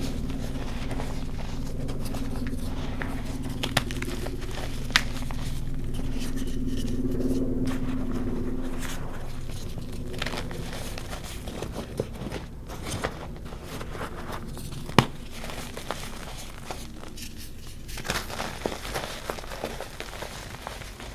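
Reformed gym chalk being crushed and crumbled by hand: scattered crisp crunches and snaps, with one sharp snap about 15 seconds in. A steady low hum runs underneath and fades about halfway through.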